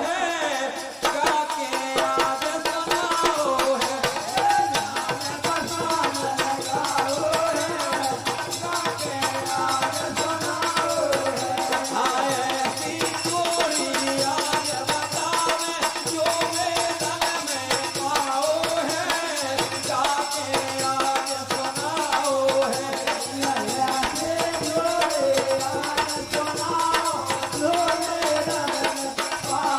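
Bundeli devotional folk music: a wavering melody over a steady hand-drum rhythm and rattle, without a clear lead voice.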